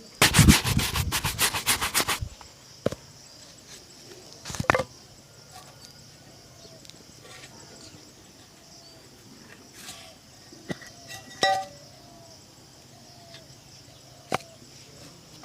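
Brisk back-and-forth brushing of a leather shoe, about six strokes a second, which stops after about two seconds. After that, only scattered light taps and knocks over a low background, with a louder knock near five seconds and another near the end.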